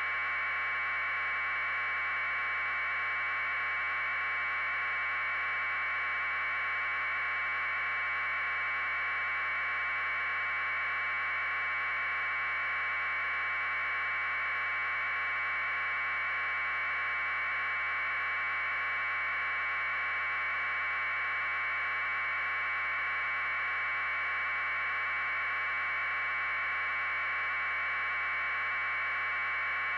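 Steady, unchanging electronic hiss confined to a narrow mid-pitched band, with no events and no change in level: the noise floor of a raw feed's audio channel.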